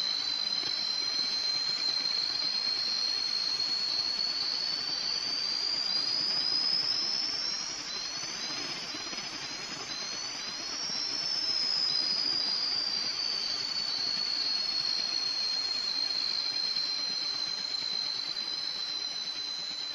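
Electronic high-pitched tone with rapid, repeating rising chirps above it, over a steady hiss. The tone slowly rises in pitch, the sound dips briefly about eight seconds in, and then the tone glides back down.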